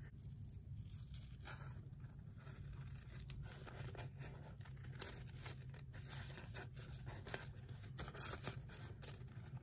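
Scissors cutting through folded paper: a run of faint, irregular snips.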